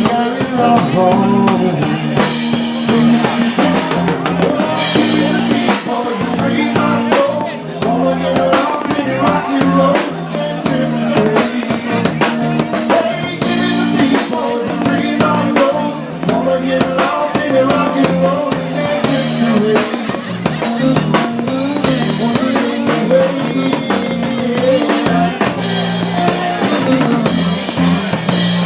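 Music with a drum kit beat and a bass line.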